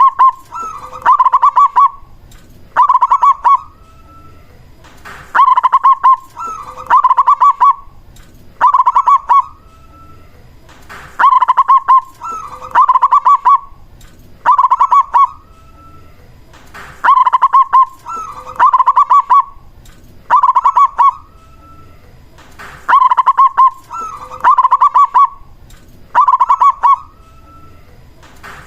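Zebra dove (perkutut) cooing its song over and over. Each phrase is a short lead note followed by three or four quick, rolling coos, repeated about every six seconds.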